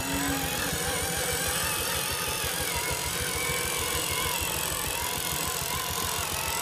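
A radio-controlled 6x6 timber truck running steadily, its motor and drivetrain whirring, mixed with background music.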